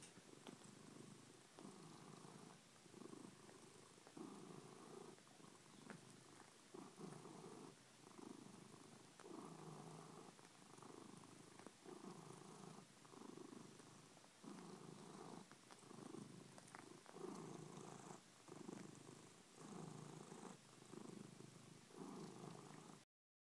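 Grey domestic cat purring right at the microphone, the purr swelling and easing with each breath about once a second. It cuts off abruptly just before the end.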